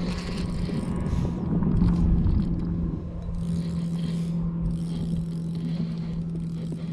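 Boat motor humming steadily at one pitch, under a low rumbling noise that swells about two seconds in, with light scraping and handling of the rod and reel.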